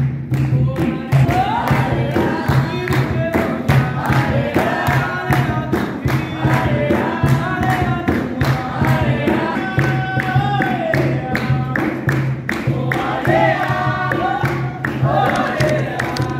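Capoeira roda music: a group of people singing together over steady hand-clapping and an atabaque drum beat.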